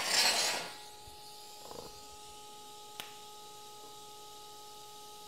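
Steady electrical hum with a faint high tone from a TIG welding setup tacking thin stainless exhaust tubing, with a single sharp click about three seconds in. A short hiss opens the sound.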